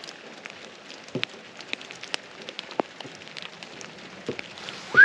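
Rain falling on a pickup truck's camper shell, heard from inside: a steady hiss with scattered sharp drop ticks. A short falling tone comes in at the very end.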